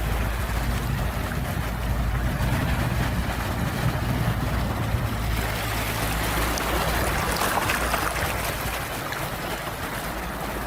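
Sea waves washing on the shore, with a steady low rumble underneath; a wave swells and breaks about seven seconds in.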